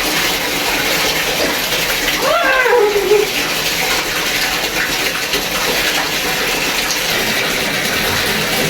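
Tap water running steadily into a bathtub. A short rising-and-falling voice sound breaks in about two and a half seconds in.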